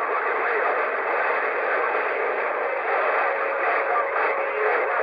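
Cobra 148 GTL CB radio's speaker hissing with steady static while receiving a distant station, faint wavering voice traces buried in the noise.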